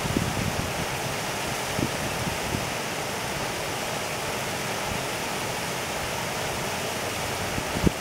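Shallow river water flowing steadily over a sandy bed, an even rushing ripple, with two brief low thumps: a faint one about two seconds in and a louder one near the end.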